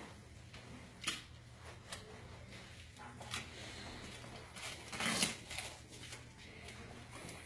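Handling noises as hands pull at a padded leg cast and the wrapped packages hidden inside it: rustling and scraping with a few sharp crackles, the loudest about five seconds in.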